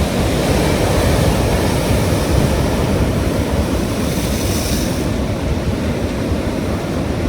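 Ocean surf breaking and washing on the shore, a steady heavy rumble with a brighter hiss of water about four to five seconds in; wind buffets the microphone.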